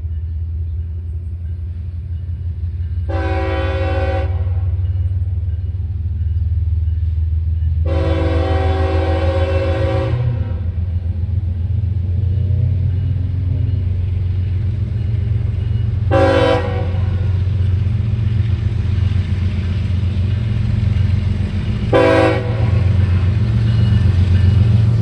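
Diesel freight locomotive's multi-chime air horn sounding four blasts: a long one about three seconds in, a longer one around eight seconds, then two short toots. The locomotive's engines rumble steadily underneath throughout.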